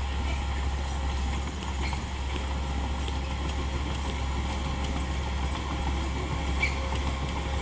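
Komatsu D31P crawler bulldozer's diesel engine running steadily with a low rumble.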